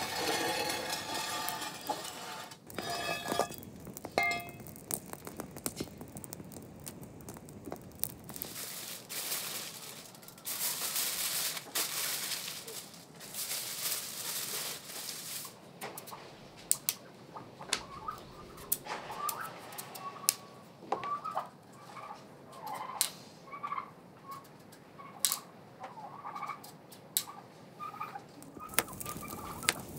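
Farmyard poultry calling: short clucks and calls repeated through the second half, mixed with scattered sharp clicks. A few seconds of steady rushing noise sit near the middle.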